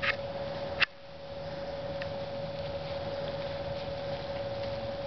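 A steady, even hum on one tone over a background hiss, with two short sharp knocks in the first second.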